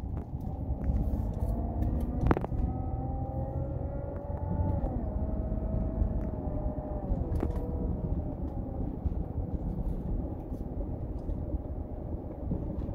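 Car engine and road rumble heard from inside the cabin as the car pulls away and accelerates, the engine note rising and then dropping twice as it shifts up through the gears. A sharp knock about two seconds in.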